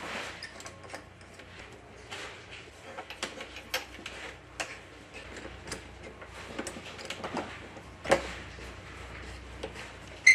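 Light clicks and taps of corrugated stainless steel flex line fittings being handled and threaded onto a valve's connections by hand, with a sharper knock about eight seconds in.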